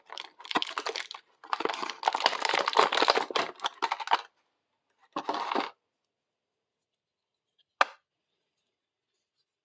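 Toy packaging being handled and torn open: crinkling and tearing in three bursts, the longest lasting about three seconds, then one sharp click near the end.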